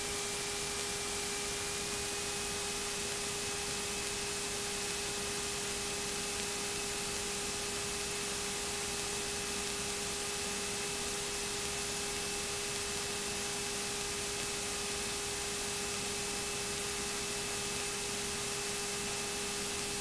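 Steady hiss of the aircraft's intercom audio feed, with a faint steady whine running through it; the whine's pitch steps up slightly about two seconds in.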